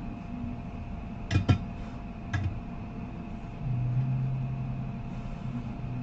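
Metal tweezers clicking against a reballed BGA chip, three short sharp clicks in quick succession in the first half, over a steady electrical hum from bench equipment. A louder low hum starts just before four seconds in.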